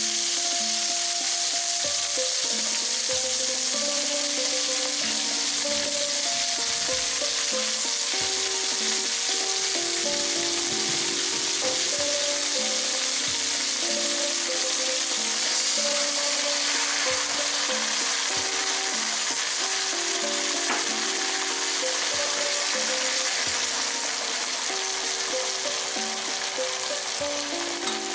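Water spinach (morning glory) stir-frying in oil in a hot wok: a steady sizzle that eases slightly near the end.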